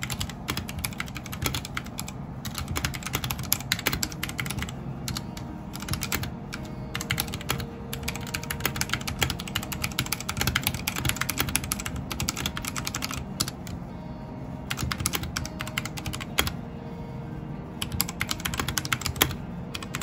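Continuous fast typing on a Royal Kludge RK84 mechanical keyboard: a dense, uneven clatter of key clicks with brief pauses.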